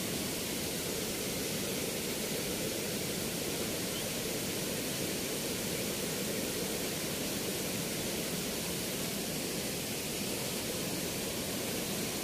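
Steady rushing of water spilling through the sluice gate of a movable weir, unchanging throughout.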